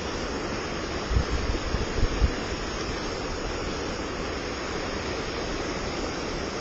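River rapids rushing steadily, an even wash of whitewater noise, with a few low thumps between about one and two and a half seconds in.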